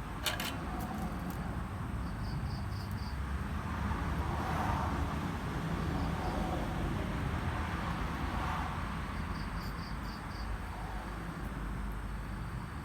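A vehicle passing in the background: a steady low rumble that swells and fades twice. Two short runs of four or five rapid high chirps come early on and again near the end.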